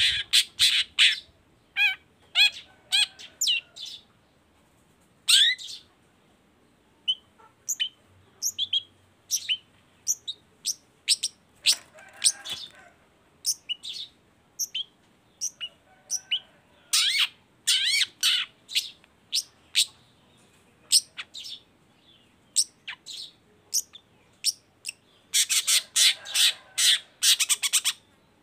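Long-tailed shrike singing vigorously: a varied run of short, sharp chirping notes and chattering phrases broken by brief pauses. The song comes in several dense bursts, the longest near the end.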